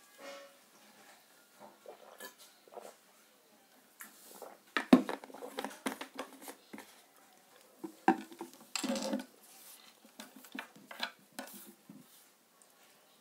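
A string of clinks, knocks and handling noises, with a cluster of louder clatter about five seconds in and another around nine seconds in.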